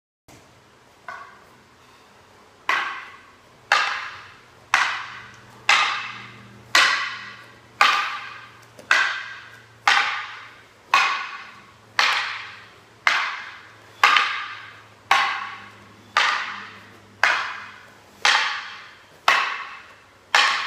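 A very even series of sharp wooden clacks, about one a second, each ringing out briefly. Near the start there is one fainter knock.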